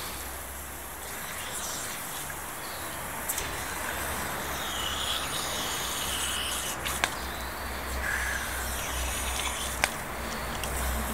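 Outdoor ambience: a steady hiss over a low rumble, with a bird chirping now and then and a couple of sharp clicks.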